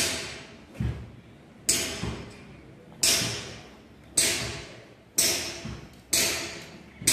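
Repeated sharp knocks, about one a second, each dying away over most of a second, like blows struck somewhere in the workshop.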